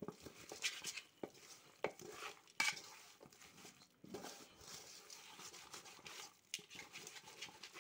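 Hands kneading and squeezing raw duck pieces with onion and thick spice paste in a metal pot, with faint, irregular clicks and scrapes as the meat moves against the pot.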